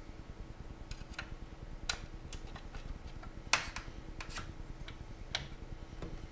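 Scattered light clicks and taps of hands working the metal projector bracket inside a DLP resin 3D printer's aluminium frame, about a dozen at uneven intervals, the loudest about three and a half seconds in. A faint steady hum runs underneath.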